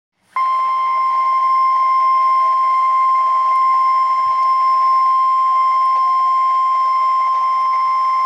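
Emergency Alert System warning tone: one steady, unbroken high tone at about 1050 Hz, the NOAA Weather Radio warning alarm tone that signals a warning-level alert, here a flood warning.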